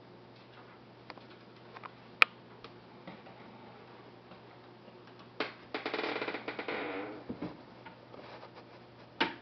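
Handling noise from a handheld camera being moved: a sharp click about two seconds in, scattered light ticks, a dense clicking rattle lasting about a second and a half around the middle, and another click near the end.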